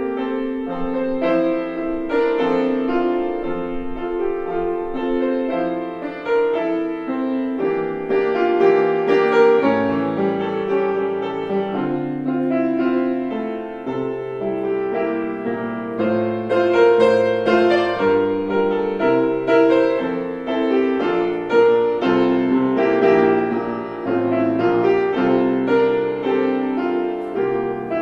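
Solo piano music: a calm piece of held chords over a slowly moving bass line.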